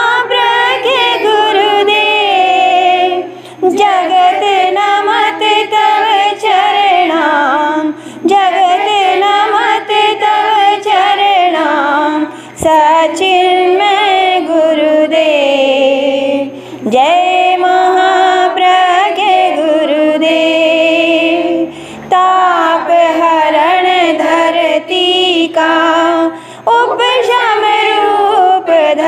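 A group of women singing a Hindi devotional hymn to a guru in unison, without instruments, line by line with short breaks between the phrases.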